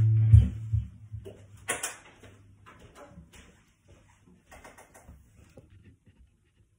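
The last note of the song rings out and dies in the first half second, with a low thump about a third of a second in. After that come faint scattered footsteps and rustles, the loudest rustle just under two seconds in.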